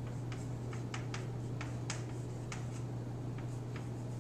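Chalk clicking and scratching on a chalkboard as an equation is written: quick, irregular clicks, several a second, over a steady low hum.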